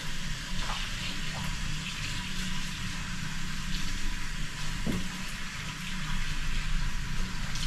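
Kitchen tap running steadily into the sink during hand dishwashing, with a few faint clinks.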